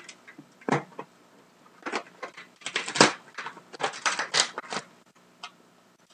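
A blade cutting through packing tape on a cardboard box: a quick scrape about a second in, then a run of scratchy scrapes and crackles through the middle.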